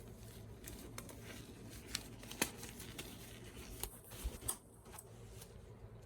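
Hands handling a motherboard's cardboard box and packaging: scattered taps and clicks over soft rustling, the sharpest about two and a half seconds in and a cluster around four to four and a half seconds.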